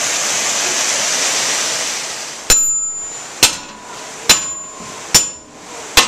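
Rushing stream water, then a hammer ringing against iron log dogs, struck about once a second from two and a half seconds in. The dogs are being driven into the log to hold it steady on the sash sawmill's carriage.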